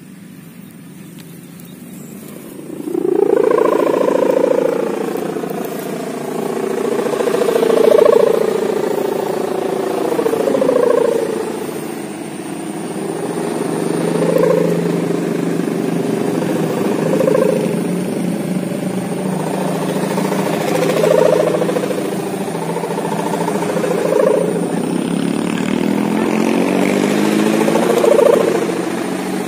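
Sendaren, the hummer bow mounted on a big pegon kite, droning loudly from about three seconds in, once the kite is up. Its pitch slides up and down and swells every few seconds.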